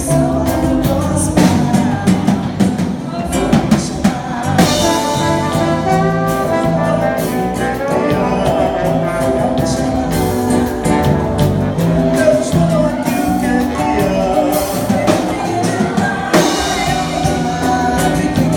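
Music: a singer with band accompaniment that includes brass, over a regular beat.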